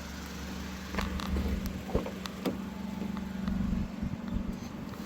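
Small Toyota car's engine running steadily at a low hum, with several sharp clicks and knocks between about one and two and a half seconds in.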